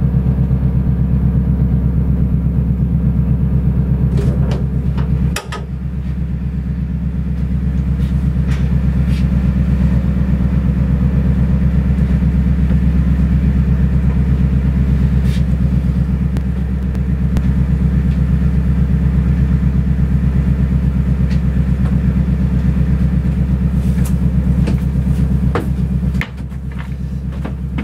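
A boat's engine running steadily, heard inside the craft's enclosed cabin as a loud, even rumble with a fast engine beat. A few knocks come about five seconds in and again near the end.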